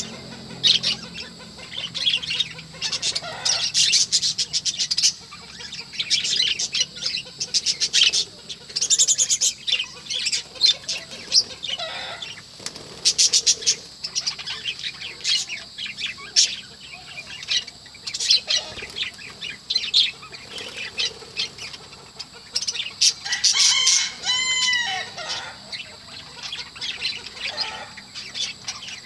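Budgerigar chatter: rapid runs of high chirps and clicking warbles that come in bursts, with one longer wavering call about 24 seconds in.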